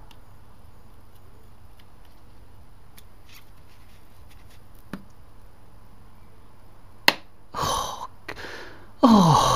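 Pliers closing a band clamp on the rubber intake boot of a BMW R1200GS throttle body: quiet working sounds, then one sharp click about seven seconds in as the clip snaps shut, followed by handling noise and a louder low sound near the end.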